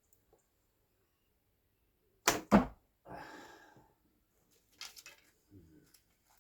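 An English longbow shot: the sharp snap of the bowstring on release, then the arrow striking the target about a quarter-second later. A brief soft rustle follows.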